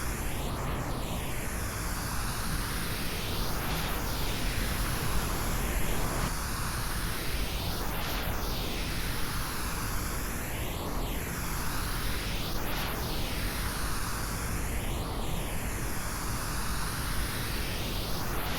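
Pink noise, a steady even hiss, processed as 8D audio so that it pans around the listener. A sweeping, hollow phasing comes and goes every few seconds.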